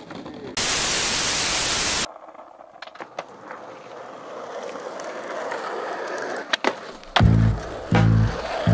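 A loud burst of static-like hiss lasting about a second and a half, then skateboard wheels rolling on a rough paved path, growing louder, with a few sharp clicks from the board. Near the end, music with a heavy bass beat comes in.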